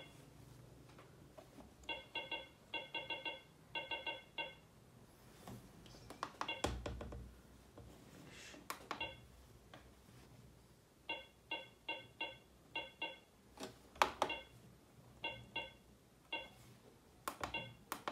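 Cardiomark CM 9000 multi-parameter patient monitor giving short electronic key beeps as its front-panel buttons and rotary knob are worked: quick runs of several beeps at a time, with a few sharper clicks of keys being pressed. The beeps are the monitor's feedback that each switch is responding.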